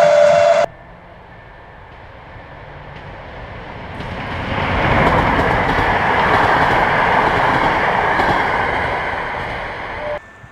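Passenger train of PKP Intercity coaches passing close by, its wheel and track noise building up, holding loud for a few seconds, then fading and cut off near the end. It opens with a second or less of a train running off with a steady whine, which stops suddenly.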